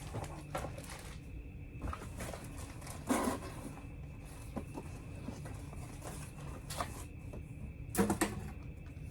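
Handling noises from unpacking graded comics: a few short rustles and clicks as plastic CGC slabs and packing paper are moved about. The loudest come about three seconds in and near the end, over a steady low room hum.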